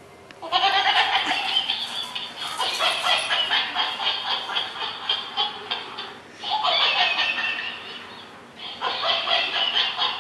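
Plush toy monkey letting out electronic laughter in three bursts of high, rapid chattering. The first starts about half a second in and lasts several seconds, and two shorter bursts follow near the end.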